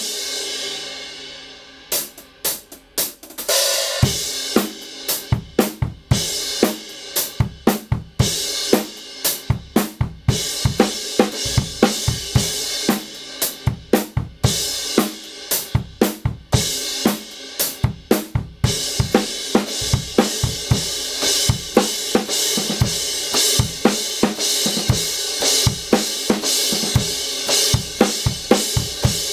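Kingdo Artist Dark 17-inch crash cymbal struck once and ringing out. About two seconds in, a drum-kit beat starts with snare, bass drum and hi-hat, and the crash is hit on accents. In the last third its wash rings almost continuously over the beat.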